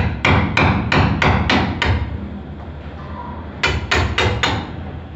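Hammer striking an orange PVC sanitary pipe fitting to knock it loose from the pipe it is stuck on. A quick run of about seven blows, roughly three a second, then a pause and four more.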